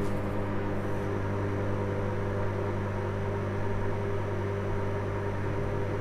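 Hinari 800-watt microwave oven running on high: a steady low hum.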